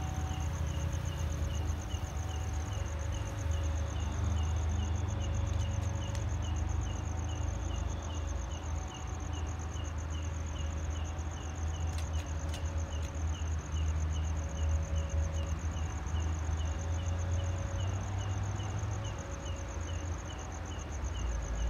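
Crickets trilling steadily, with a shorter insect chirp repeating about twice a second, over the low steady rumble of a diesel train idling close by.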